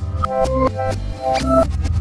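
Background music: short bright notes over a steady beat, about four notes a second.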